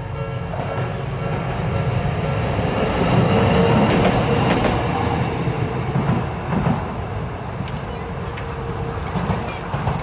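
A Toden Arakawa Line tram passing over a level crossing: wheels rumbling on the rails, loudest about three to five seconds in, with a few clacks from the wheels later on. The crossing's warning bell rings faintly behind it and dies away.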